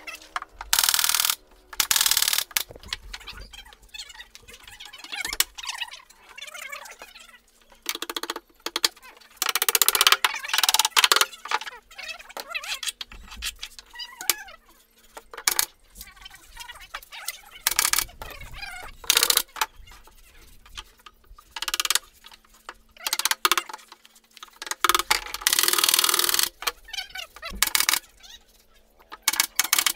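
A pneumatic nail gun fires nails into plywood cabinet panels in irregular runs of sharp shots and short noisy bursts. A faint steady hum runs underneath from about six seconds in.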